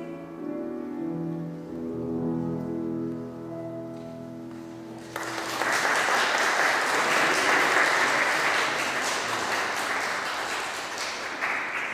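The last sustained chord of a song's accompaniment fades out, then a roomful of people breaks into applause about five seconds in, which dies down near the end.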